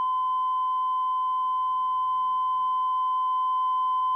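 Steady line-up test tone: a single pure, unbroken beep played with broadcast colour bars, the reference signal for setting audio levels on video tape.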